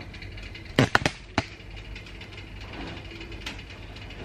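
Three sharp knocks close together about a second in, as a metal cake pan full of batter is gripped and lifted off a wooden board, followed by a low steady room hum.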